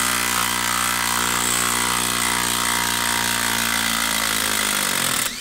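Makita XDT13 brushless impact driver running hard under load as it backs a 4.5-inch lag screw out of a wood stump, a steady, even drone. Near the end it slows slightly, then stops sharply as the lag comes free.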